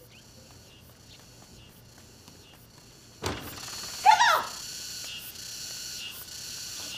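Quiet room tone, broken about three seconds in by a single sharp thump. After the thump a steady high insect drone sets in, behind a woman shouting once.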